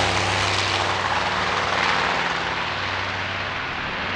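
Radial piston engines of a World War II propeller warbird running, a steady low drone under broad engine noise that slowly fades and grows duller.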